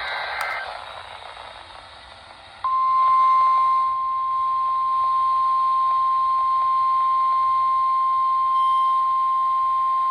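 End of an emergency-alert digital header burst, a short stretch of radio hiss, then from about two and a half seconds in a single steady high beep: the warning alarm tone that precedes a severe thunderstorm warning broadcast, in the manner of a NOAA Weather Radio alert.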